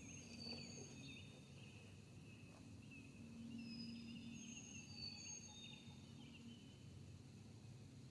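Faint songbirds singing outdoors: several birds giving short, high, clear whistled notes and quick chirps that overlap, over a low steady hum.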